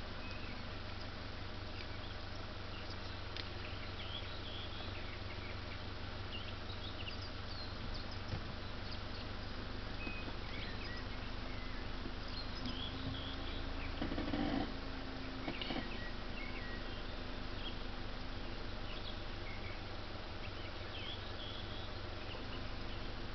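Small birds chirping in short, scattered calls over a steady low hum. About fourteen seconds in there is one brief, louder, lower-pitched sound.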